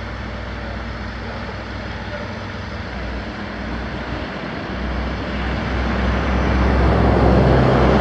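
Heavy diesel engine running with a steady low drone, growing louder over the last three seconds.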